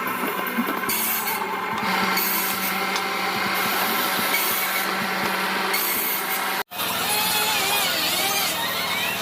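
Power woodworking tool running steadily on hardwood, with a sudden break about two-thirds of the way through.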